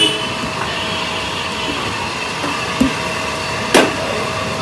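Steady whirring hum of a machine, with a light knock near the middle and a sharp knock near the end as the rolling pin is set down on the steel worktable.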